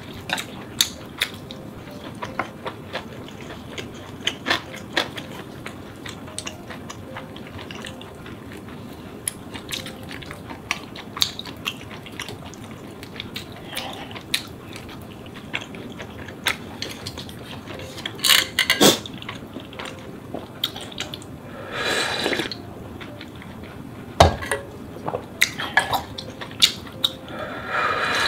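Close-up eating sounds of ramen: chewing, with chopsticks and a spoon clicking against a bowl and a metal pot many times. Twice a short, noisy slurp stands out, the second near the end as broth is drunk straight from the aluminium ramen pot.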